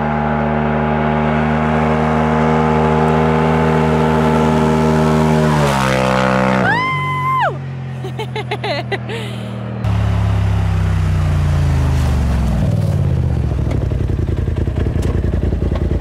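Polaris RZR Turbo S turbocharged twin-cylinder engine running at steady high revs. The revs fall off about six seconds in, and a short whistling tone follows whose pitch drops as it ends. The engine then comes back in at lower revs and winds down toward idle.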